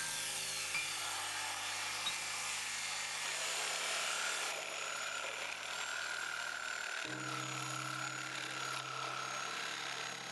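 Electric power saws cutting through a thick lumber beam. A DeWalt circular saw starts the cut, and a small reciprocating-blade saw finishes it, its motor running with a steady whine over the hiss of the cut.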